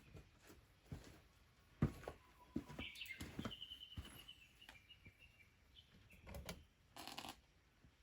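Several sharp knocks and clunks, the loudest about two seconds in, with a short high trilling chirp from a small bird in the middle.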